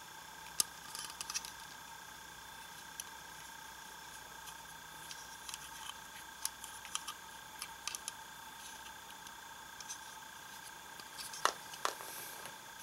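Plastic Kabutick Zecter toy being handled: scattered small clicks and taps as its parts are moved and it is turned over in the hands. There are no electronic sound effects, since the toy has no electronics. The sharpest clicks come near the end, over a steady faint whine.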